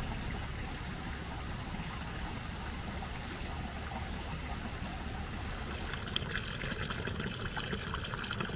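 Running water trickling, a steady rushing noise with a low rumble underneath; from about six seconds in, crisper crackling sounds join it.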